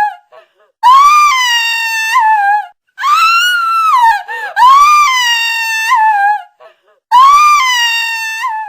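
A woman screaming: four long, high-pitched screams of about two seconds each, with short gaps between them. Each rises, then trails down, and they look like the same scream repeated.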